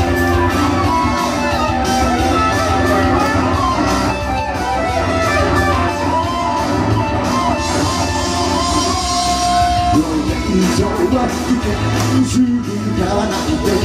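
Electric guitar playing an instrumental solo with bent and sliding notes over rock and roll backing with bass and drums.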